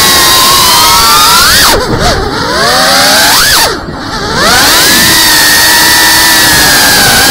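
GEPRC CineLog 35 cinewhoop's brushless motors whining, the pitch rising and falling with the throttle. Twice, about two and four seconds in, the whine drops off and swoops back up as the throttle is cut and punched through a flip or roll.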